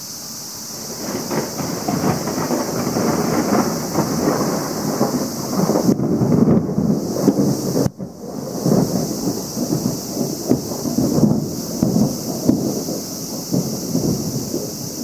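Thunder rumbling. It builds about a second in and rolls on in uneven surges.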